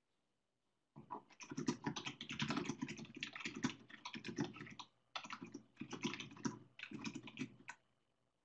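Rapid typing on a computer keyboard, a quick run of key clicks. It starts about a second in, breaks off briefly midway, and stops shortly before the end.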